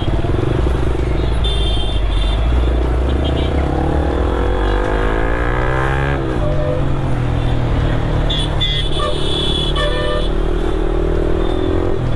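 Motorcycle engine under way with steady road and wind rush. About four seconds in it revs up, pitch rising for two seconds, then drops sharply at a gear change. Brief high steady tones sound twice, early and late.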